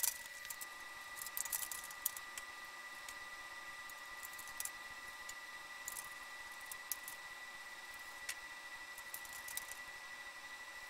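Faint scattered clicks and light ticks of hands handling and fitting parts of a metal folding workbench frame, over a steady faint high whine.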